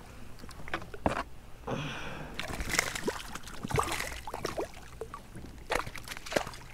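Water sloshing and splashing around a kayak, with scattered sharp knocks and splashes.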